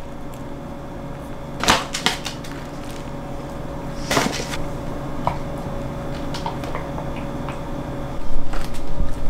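Kitchen handling noise as containers and lids are picked up and set down while a cabbage dish is topped with hemp seeds and dressing. There are a few sharp knocks and clicks, the loudest about four seconds in, over a faint steady hum, and the handling gets louder near the end.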